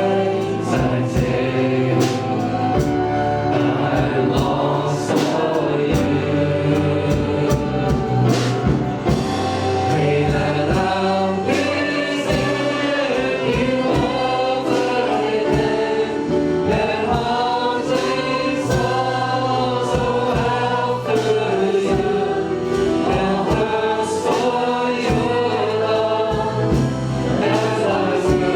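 Congregational worship song: a group of voices singing together over a band with drums, keeping a steady beat.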